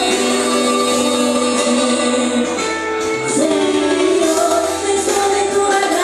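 A worship song played live, with singing over instruments in long held notes; the notes change about two and a half seconds in.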